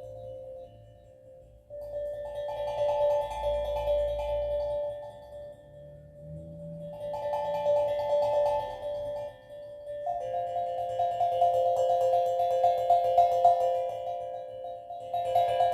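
Steel drum played in a slow, free improvisation: ringing, sustained notes in phrases. There are short lulls about a second in and again around five seconds in, then a denser run of strikes from about ten seconds in.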